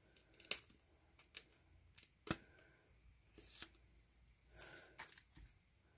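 Faint rustling and crinkling of a clear plastic card sleeve as a photocard is slid out and handled, with a few sharp little clicks in between.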